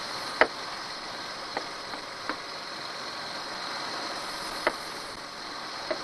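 Nissan Pathfinder engine idling with the AC compressor running, a steady noisy hum, while R134a refrigerant is charged into the low side. Four light clicks, the loudest about half a second in, come from handling the charging can and its trigger.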